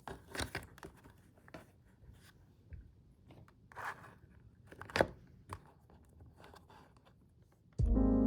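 Faint, scattered small clicks, taps and rustles of things being handled at close range, with one sharper tap about five seconds in. Soft music with guitar and piano comes in near the end.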